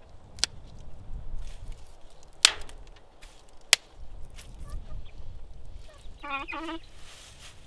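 A few sharp clicks and snaps, the loudest about two and a half seconds in, as hands work the plastic brooder heat plate and the sticks and straw around it, over a low rumble of wind on the microphone. Near the end a turkey gives one short, wavering call lasting about half a second.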